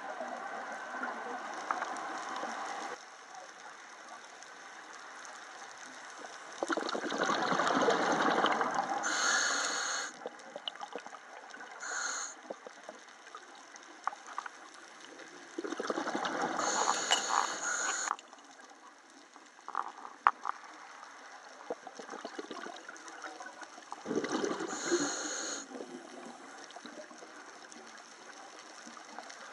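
Scuba diver breathing through a regulator underwater: three long bursts of exhaled bubbles about eight seconds apart, with short hisses from the regulator between them.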